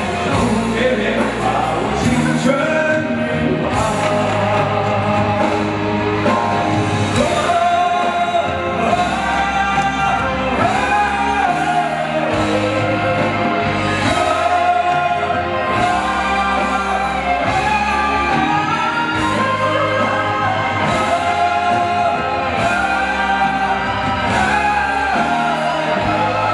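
A male singer singing into a microphone over backing music, the vocal carrying a sustained melody.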